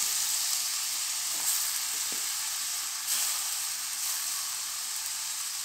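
Chicken, onions and ginger-garlic paste sizzling in hot oil in a steel pressure cooker while chopped tomatoes are tipped in. A steady frying hiss runs throughout, with a few soft knocks.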